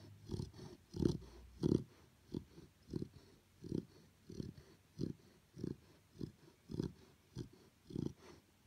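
A sleeping Chow Chow puppy snoring: short, regular breaths, about three every two seconds.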